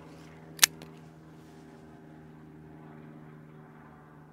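Steady low mechanical hum made of several held tones, with a single sharp click about half a second in.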